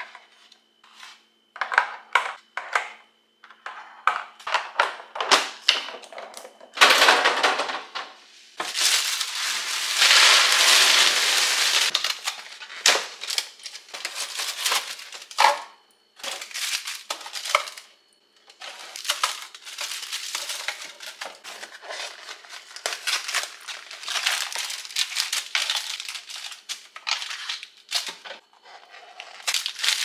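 Kitchen clatter of groceries being put away: an irregular string of knocks and clinks as items and containers are set down, with packaging rustling. There is a longer steady rushing noise from about nine to twelve seconds in.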